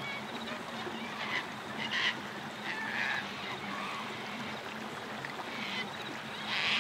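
Birds calling over a steady rush of flowing water. There are about five short calls in a few seconds, and the loudest comes near the end.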